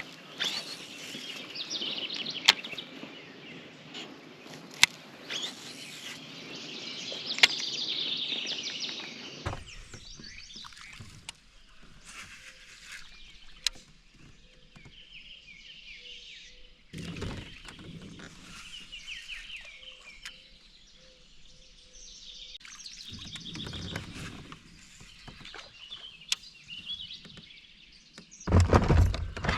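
Small birds chirping and calling over open-air ambience, with three sharp clicks in the first several seconds and a few low knocks or rustles later, the loudest near the end.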